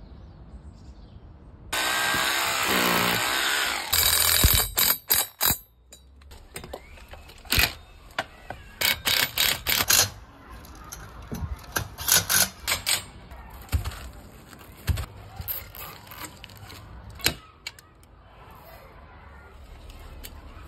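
Cordless drill driving fixings: one long run of the motor with its pitch dropping, then a string of short trigger bursts. A few sharp knocks and clicks from the fittings come between them.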